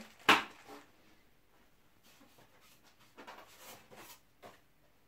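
Kit parts being handled: a short sharp rustle of the plastic bag of screws, nuts and washers just after the start, then faint rustling of packaging and a small click about four and a half seconds in.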